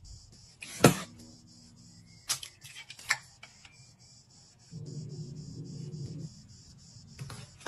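Kitchen prep knocks and clinks: a sharp, ringing knock about a second in, then two lighter clinks of a metal ladle against a ceramic bowl, and another click near the end. A low hum runs for about a second and a half late on. Throughout there is a steady, pulsing high chirring of insects.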